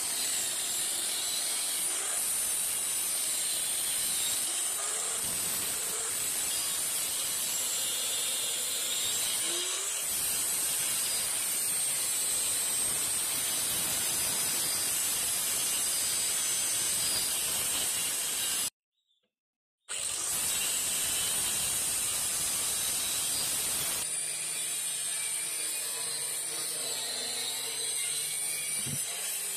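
Small handheld electric circular saw running and cutting into a kithul palm log: a steady high whine with a hiss. It cuts out for about a second a little past halfway, and the sound is thinner in the last few seconds.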